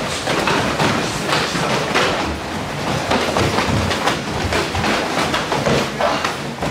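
Full-contact karate sparring by many pairs at once: kicks and punches thudding on bodies and on focus mitts, mixed with bare feet stamping and shuffling on the mat, in a dense, irregular, unbroken clatter.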